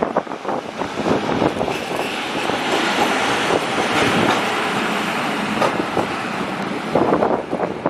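Toyama Chihō Railway streetcar running along the track, a steady rumble of wheels on rail that swells towards the middle, with wind buffeting the microphone.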